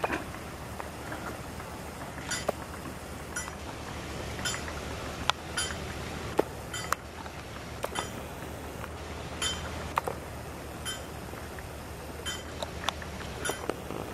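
Light, sharp clinks and clicks at irregular intervals, about one or two a second, over a steady low background noise.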